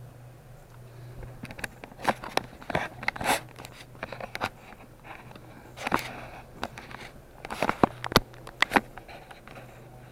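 Irregular clicks, knocks and scraping from hands working at the fittings inside a faulty toilet tank, over a steady low hum.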